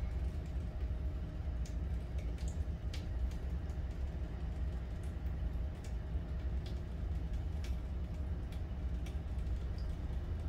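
Small water pump running with a steady low hum, pushing water through an inline carbon filter whose outlet pours into a cup. Scattered faint ticks run through it.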